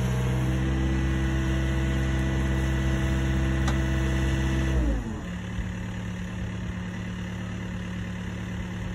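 Mini excavator's diesel engine running at raised revs while lifting a fibreglass pool shell, then dropping to idle about five seconds in: the pitch falls and the sound gets quieter.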